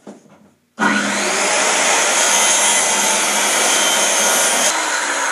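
Handheld electric circular saw starting up sharply about a second in and then running steadily as it cuts a sheet of oak plywood.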